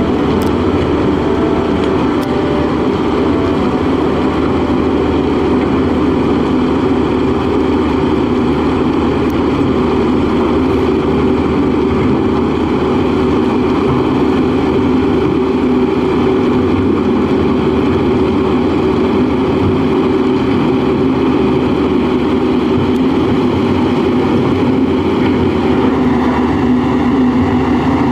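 LiuGong single-drum vibratory road roller's diesel engine running at a steady, even drone while the machine compacts a layer of crushed stone.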